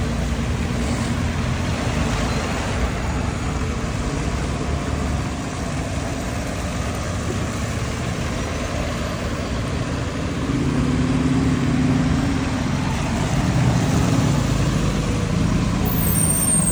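Bus engines running steadily, growing louder about ten seconds in.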